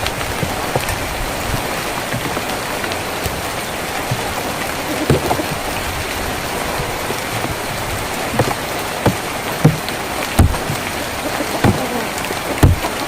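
Steady rain on a tin roof, an even dense hiss, with irregular louder single drops striking it, more of them in the second half.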